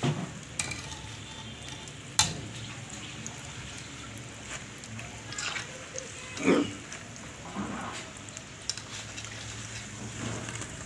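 Momos deep-frying in hot oil in an iron kadhai, a steady sizzle; they are being fried on a low flame until crisp. A wire spider strainer stirs them, and it knocks and scrapes against the pan a few times, sharpest about two seconds in and past the middle.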